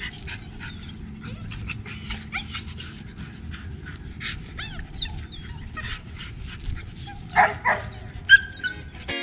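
Dogs on leashes whining and yipping in quick, high, pitch-bending cries as they face one another, with a few louder barks near the end.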